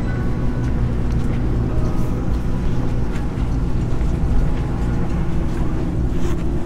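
Steady low rumble and hum of a metro train standing at an underground platform with its doors open, with a faint murmur and shuffle of a crowd boarding.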